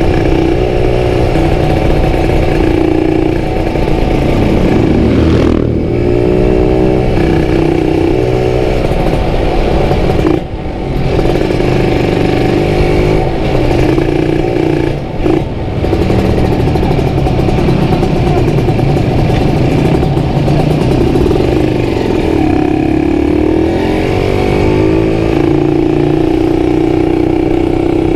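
Kawasaki Ninja RR 150's two-stroke engine running through a CMS aftermarket exhaust, its pitch rising and falling with the throttle. The sound drops briefly twice, about ten and fifteen seconds in.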